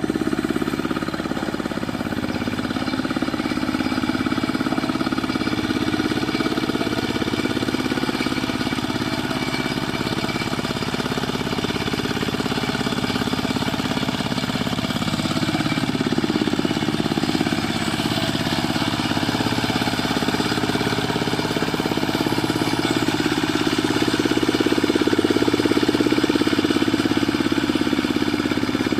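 Single-cylinder Dongfeng diesel engine on a Quick Impala two-wheel hand tractor running steadily, its pitch wavering slightly as the load changes, a little louder about three-quarters of the way through.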